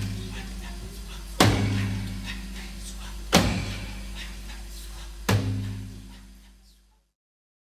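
Background music: a slow track with a heavy drum hit about every two seconds over a steady low bass drone, fading out near the end into silence.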